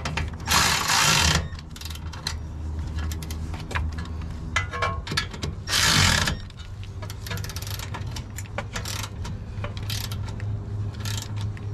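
Hand ratchet clicking in quick runs, with scattered clinks of tools and metal parts, as a car's front suspension spindle is bolted up; a steady low hum runs underneath.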